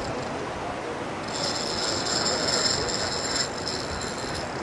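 High-pitched whine from a heavy conventional fishing reel loaded by a hooked shark, strongest for about two seconds in the middle, over a steady hiss of background noise.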